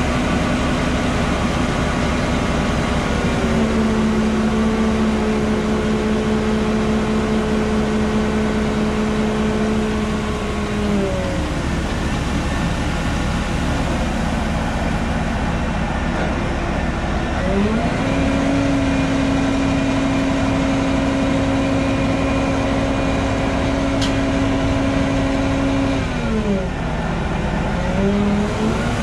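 John Deere 9520RX tractor engine running steadily under load. Its pitch rises a few seconds in, falls back about eleven seconds in, rises again around eighteen seconds and drops once more near the end.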